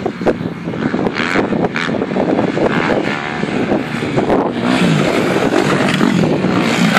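250 cc dirt bike engines revving, over a loud noisy rush; from about four and a half seconds in the engine note comes through clearly, its pitch rising and falling with the throttle.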